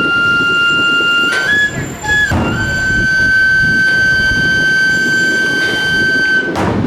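Chirimía, a Guatemalan double-reed shawm, playing a held reedy melody. It moves up through a couple of short notes about a second in, then holds one long note for about four seconds.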